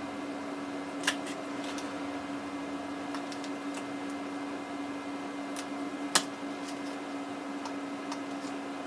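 Steady hum and room noise. A couple of light clicks, about one second and six seconds in, come from the phone and the new screen being handled as they are lined up.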